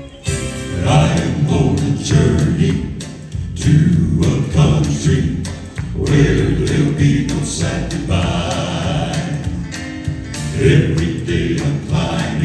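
Male southern gospel vocal group singing in close harmony.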